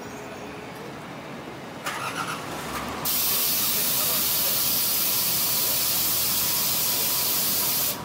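A brief squeal and rustle, then a loud steady hiss that runs for about five seconds and cuts off suddenly.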